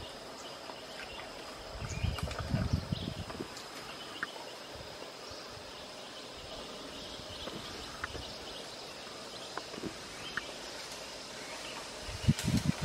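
Asian elephant feeding in a bamboo thicket: scattered snaps and rustling of bamboo stems and leaves, with louder bursts about two seconds in and again near the end, over a steady high-pitched whine.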